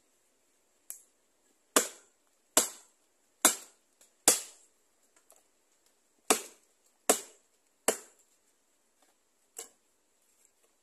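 Chopping strikes into the soft, rotten wood of a hollow log, nine in all, each a little under a second after the last: a light one, four hard ones, a pause, three hard ones and a lighter last one near the end. The log is being hacked open to reach a wild bees' nest.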